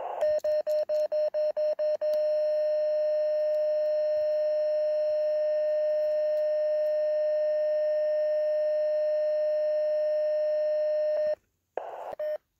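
CW sidetone from a (tr)uSDX QRP transceiver: a quick run of short beeps, about five a second, then one long steady key-down tone of about nine seconds that cuts off suddenly. It is transmitting into a badly mismatched antenna with an SWR of about 8 while the match is checked.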